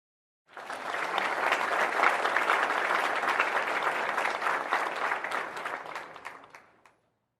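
Applause from a crowd of many people clapping, starting abruptly about half a second in, holding steady, then thinning out and fading away near the end.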